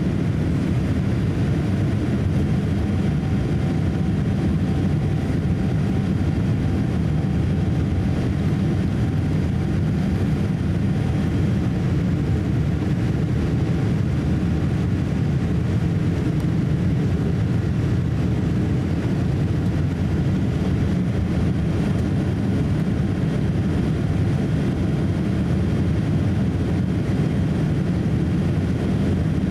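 Steady cabin noise of a Boeing 787-8 in flight, heard from a window seat over the wing: an even low rush of airflow and Rolls-Royce Trent 1000 engine noise. A faint steady hum sits on top from about three seconds in until about fourteen seconds in.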